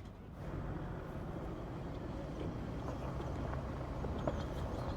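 A vehicle engine running steadily, a low even rumble that starts just after the beginning.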